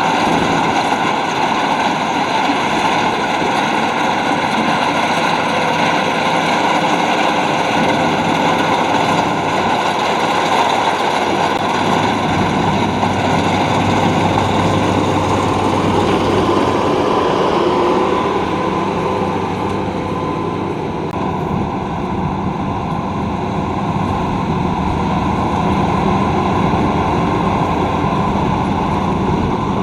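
Luvol RD18 rice combine harvester running steadily under load, its engine and threshing machinery making a dense, continuous mechanical noise that turns duller about two-thirds of the way through.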